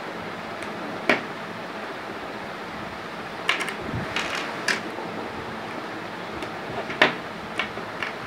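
Plastic flower-shaped interlocking building blocks clicking as pieces are pressed and handled together: a handful of sharp, short clicks at irregular intervals, the loudest about seven seconds in, over a steady background fan hiss.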